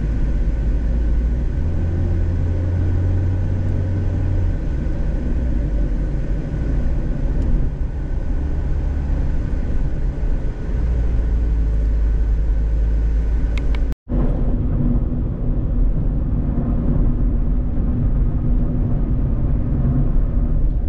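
Cabin noise of a Mazda Roadster RF driving at speed with the roof closed: a steady low rumble of tyres and engine with a faint drone. About two thirds through, the sound cuts out for an instant and comes back duller.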